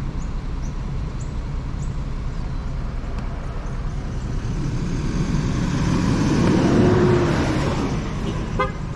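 A motor vehicle approaches and passes, swelling to its loudest about seven seconds in and then fading, over a steady low engine rumble.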